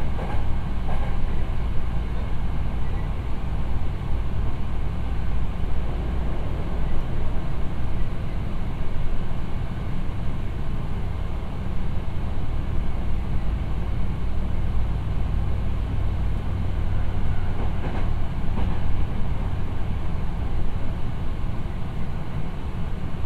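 Hankyu 7000 series electric commuter train running along the line, heard from inside the passenger car: a steady low rumble of wheels on rail with a hum, and a few faint clicks.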